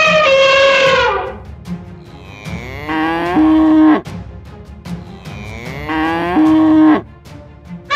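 Cattle mooing: three long moos about three seconds apart, each rising in pitch, holding steady, then dropping away. The first is already under way at the start and ends about a second in.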